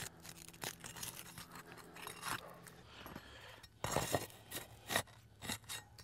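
Asphalt roof shingles being lifted and pried up, a scatter of crackles and scrapes with a louder burst about four seconds in.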